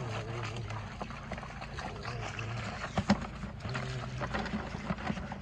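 Handling noises from reaching into a brick box, with scattered clicks and one sharp knock about three seconds in.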